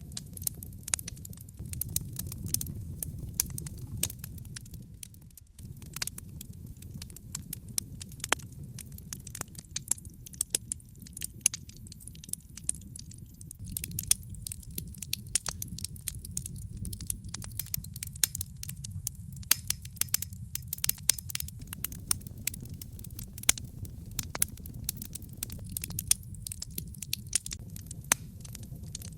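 Wood fire burning in a fireplace: logs crackling with many irregular sharp pops and snaps over a steady low rumble of the flames.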